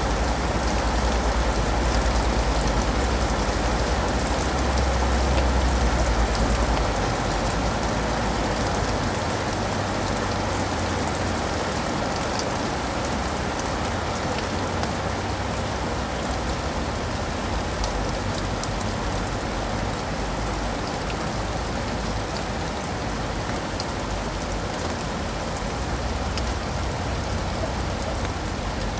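Steady rain falling on leaves and pavement, with individual drops ticking sharply over the constant hiss. A low rumble sits underneath and is strongest for the first several seconds.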